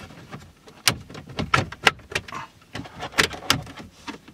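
Plastic dash trim and radio kit being pressed into a Volkswagen Beetle's dashboard: a run of irregular sharp clicks and knocks as the panel clips snap into place, busiest about a second and a half in and again around three seconds in.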